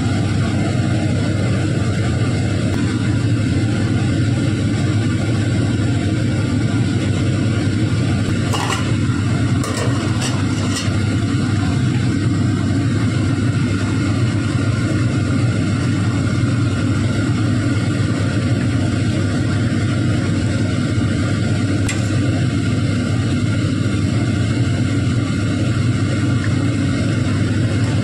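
A small motor running steadily, a constant low hum with a rushing noise. A few light clinks, about 9 to 11 seconds in and again near 22 seconds, from a utensil against a steel pot.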